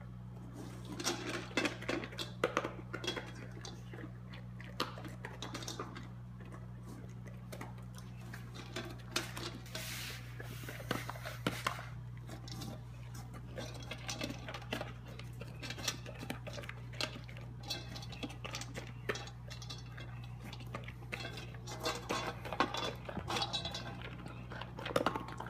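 A pit bull chewing a bone in a metal bowl: irregular crunches and clacks as teeth and bone knock against the metal, over a steady low hum.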